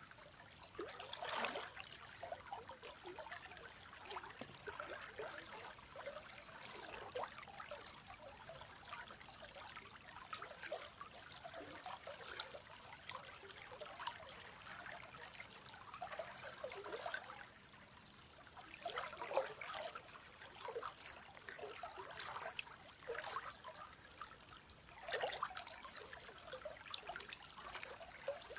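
River water flowing and trickling, an irregular patter of small gurgles and splashes with a few louder surges now and then.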